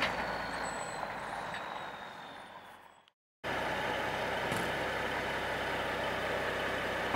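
Semi truck running, its sound fading away over the first few seconds, then after a brief silent break a steady truck running noise.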